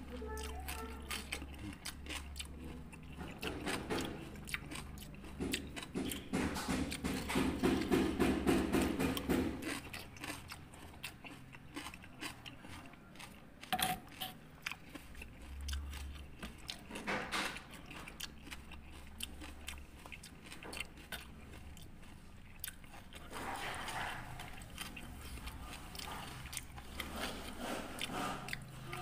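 Close-miked chewing and crunching of mouthfuls of rujak, crisp fruit pieces in a thick spicy sauce, eaten by spoon. The chewing is loudest around a quarter to a third of the way through, and there is one sharp click about halfway.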